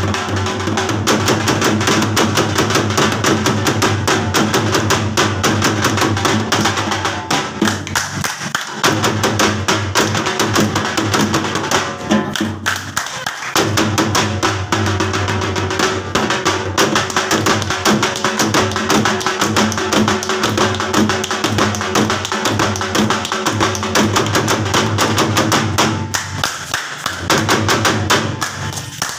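Dhol played live in a fast, dense jhummar rhythm, thick with rapid strokes over a ringing bass head. The playing thins out briefly three times, about 8, 13 and 27 seconds in.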